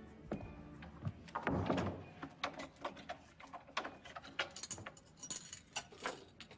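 Keys jingling and a door being handled, with scattered clicks and taps and a louder rustle about one and a half seconds in.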